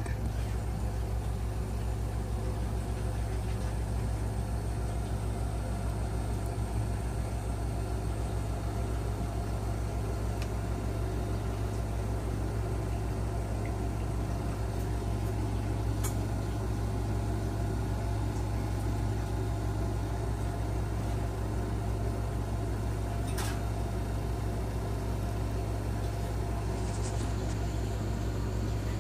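Steady low hum with a couple of faint clicks.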